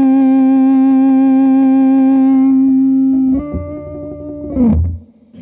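Electric guitar through the Electra MPC-12 compressor module, set all the way up. One note rings on long and even for over three seconds, then a second note is picked and slid down the neck, cut off just before the end.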